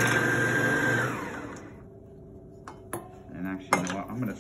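Electric stand mixer beating cake batter with a steady whine, then switched off about a second in, its motor winding down with a falling pitch. A few light clicks and knocks follow.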